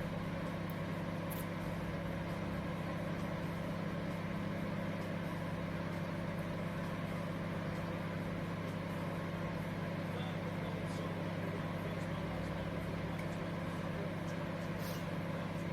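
Cello 800-watt microwave oven running, a steady low hum that holds without change.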